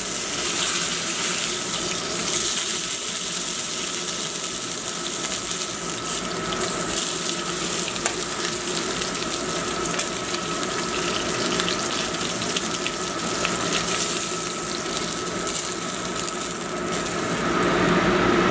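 Sous-vide-cooked striploin steak searing in a hot cast iron skillet: a steady sizzle full of fine crackles and pops.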